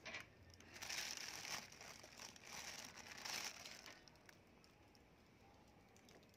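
Thin plastic bag crinkling and rustling as a hand rummages inside it, in several bursts that stop about two-thirds of the way through.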